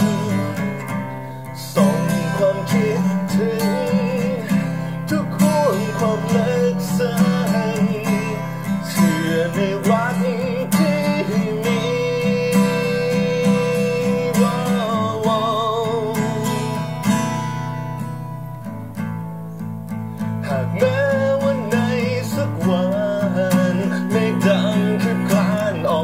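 Acoustic guitar strummed and picked as accompaniment to a man singing a ballad, his voice wavering with vibrato and holding one long note about halfway through.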